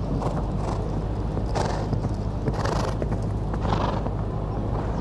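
A horse landing from a jump and cantering on a sand arena: dull hoofbeats and scuffs of sand come at irregular intervals over a steady low rumble.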